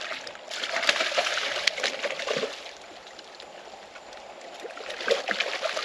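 Hooked snook thrashing and splashing at the surface of shallow water as it is drawn in to the rocks on the line, in two bursts of splashing a few seconds apart.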